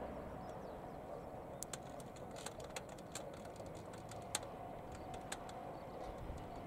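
Distant Tobu 634-type electric train running along the line: a faint low rumble with a thin steady hum, and light clicks at irregular intervals.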